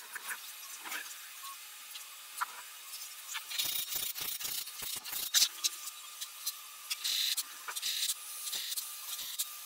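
Hand tools working on the aluminium housing of a Bosch P7100 inline injection pump: a quick run of sharp metal clicks and scrapes about three and a half seconds in, a scrape about seven seconds in, then more scattered clicks near the end.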